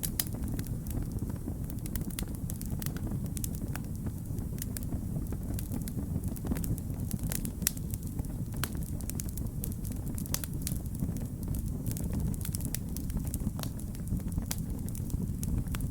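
Wood fire crackling, with frequent sharp, irregular pops and snaps over a steady low rumble of burning.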